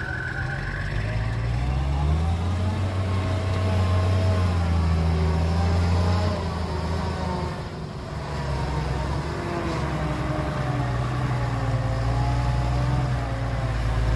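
Hyundai dump truck's diesel engine driving under a full load of earth, the engine note rising, easing off around the middle, then pulling up again.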